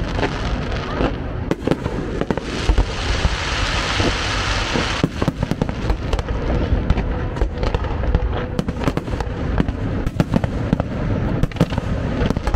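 Fireworks display: aerial shells bursting in rapid, irregular bangs and pops, with a dense crackling hiss from about two and a half seconds in to about five seconds.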